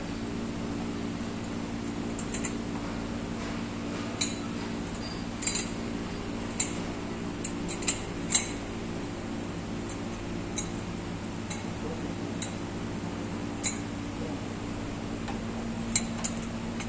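Sharp metallic clinks from a steel bar and loose metal parts on a stripped-down MAN diesel engine under overhaul. They come irregularly, every second or two, over a steady low machinery hum.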